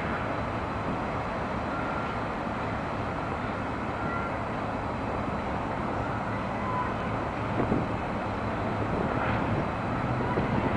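Steady low drone of an approaching Union Pacific train's diesel-electric locomotives, an SD70M leading, still distant and mixed with city traffic noise. It grows slightly louder toward the end, with a brief knock about three quarters of the way through.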